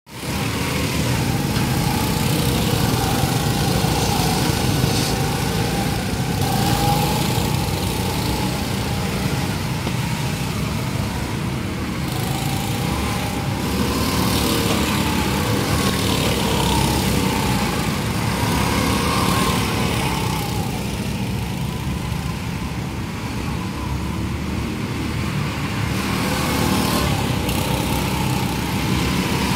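Go-kart engines running as several karts lap the track, a steady small-engine drone whose pitch rises and falls as karts accelerate past and pull away.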